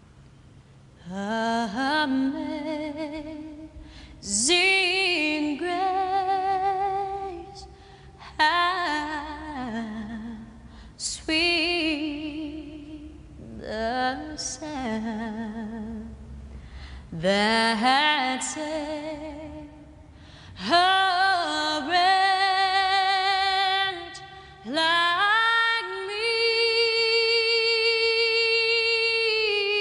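A woman singing a slow song with vibrato, in phrases a few seconds long with short breaks between them, ending on a long held note.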